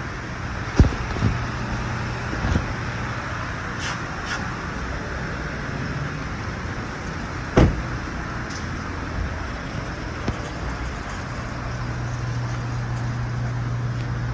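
Door of a 2013 GMC Yukon being handled, with a sharp knock about a second in and the door shutting with a thud about halfway through, over a steady low hum.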